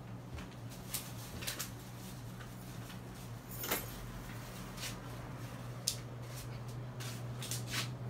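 Casablanca Lanai ceiling fan running with a steady low electric motor hum. A few sharp clicks are scattered through it, the loudest a little under four seconds in and about six seconds in.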